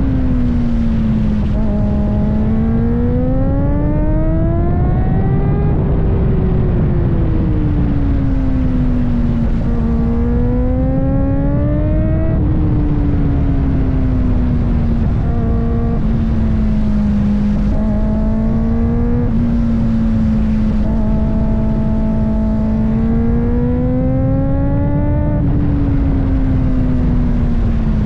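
Kawasaki ZX-4RR's 399 cc inline-four engine running under way, its pitch climbing and falling several times, with a steady low rush beneath.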